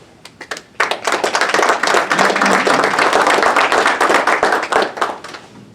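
Audience applauding: a few scattered claps, then a full round of applause from about a second in, dying away near the end.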